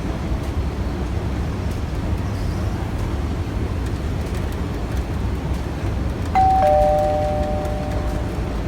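Steady low rumble of city background noise, then about six seconds in a two-note descending electronic chime, ding-dong, that rings on and fades over about two seconds.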